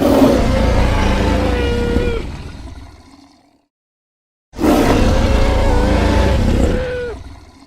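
Two long roars of a Carcharodontosaurus sound effect, each with a deep rumble under a wavering higher tone, tailing off over about a second. The second roar starts after about a second of silence.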